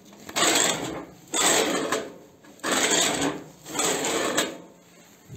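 Homemade loader carriages, steel sleeves fitted with small ball bearings, pushed by hand along steel pipe guides, the bearings rolling on the pipe. Four runs of about a second each, with short pauses between.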